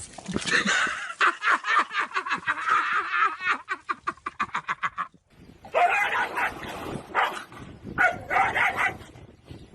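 Animal calls: a fast run of short, repeated calls that quickens over about four seconds, then after an abrupt break a few longer calls.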